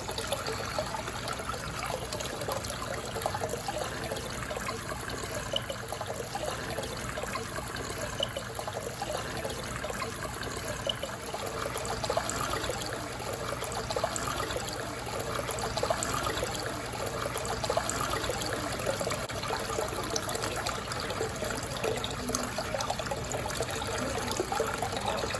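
Aquarium water running and bubbling steadily, a continuous trickle with dense small bubbles over a faint low hum.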